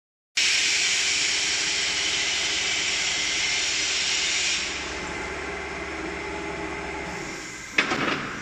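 Steady factory machine noise, a hiss with a low hum, that drops in level about halfway through. Near the end comes a short burst of knocking and rustling as a hand handles the big tissue parent roll on the machine's unwind stand.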